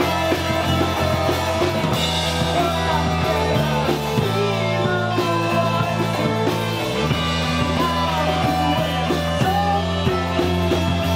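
A rock band playing together: electric guitars, bass guitar and drums, loud and steady, with held bass notes that change every couple of seconds under the guitar chords.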